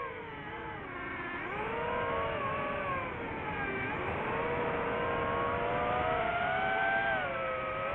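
DJI FPV quadcopter's motors and propellers whining, the pitch sliding down and up with the throttle: it dips about a second and a half in, dips again around four seconds in, then climbs steadily toward the end.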